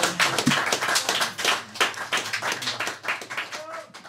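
Audience clapping, many separate claps close together with a few voices mixed in; it thins and fades out near the end.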